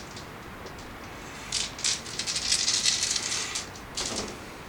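A handful of dice rattled in a hand and rolled out for an attack: a dense clatter of small clicks from about a second and a half in, then a shorter clatter near the end.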